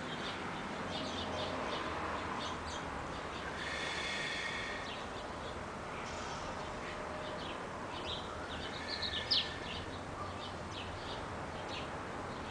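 Small birds chirping in short, scattered calls over a steady outdoor background hiss, with one louder chirp about nine seconds in.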